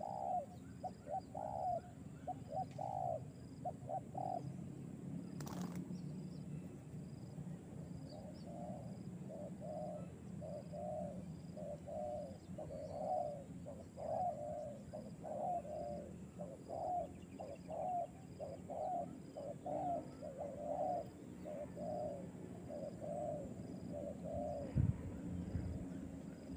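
Spotted dove cooing in repeated phrases, with a pause of a few seconds about four seconds in before the cooing starts again.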